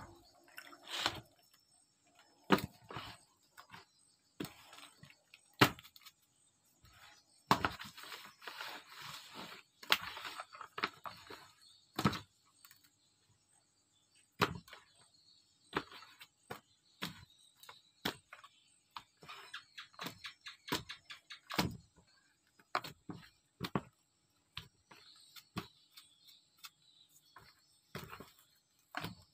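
Raw fish being handled and moved about by hand in a plastic basin during salting: irregular knocks and soft wet slaps, with a stretch of rustling in the first third.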